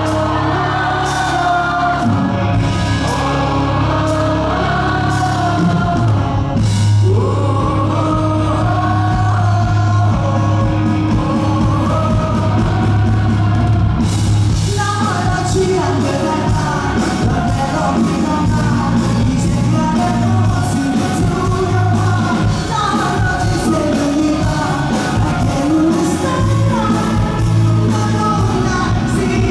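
Live rock band music with a lead singer over bass and drums, played in a large hall. About halfway through the band gets brighter and fuller.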